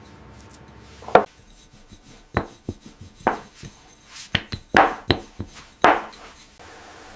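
Knife chopping on a cutting board: about ten sharp, irregularly spaced strikes that stop near the end.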